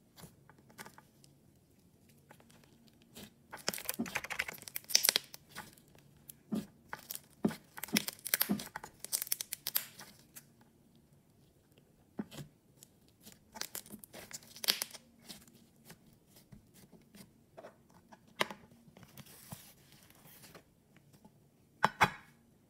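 Thick pink slime being poked, pressed and folded by hand in a plastic tub, giving sticky crackles and small pops in irregular bursts. One sharp click near the end as the tub's lid is handled.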